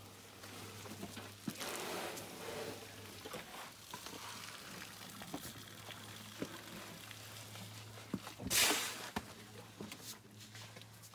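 Elephants moving in mud and dirt at close range: a crackling, sloshing noise with scattered soft knocks, over a low steady hum. About eight and a half seconds in, a short loud whoosh stands out above the rest.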